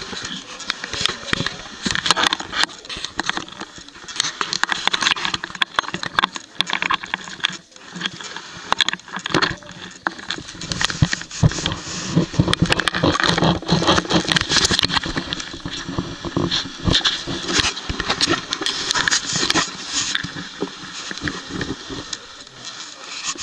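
Footsteps and shoe scuffs on rough rock and grit as people walk an uneven cave passage, a steady run of irregular crunches and scrapes.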